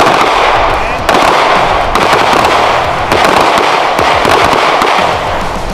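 Several handguns firing rapidly at once, so the shots blur into a continuous crackle, with fresh volleys about one, two and three seconds in.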